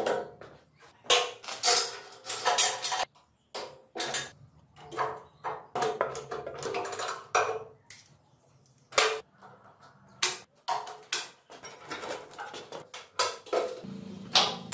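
Wrenches and spanners clinking and knocking against bolts and the steel frame of the trike, an irregular string of sharp metallic taps, some briefly ringing.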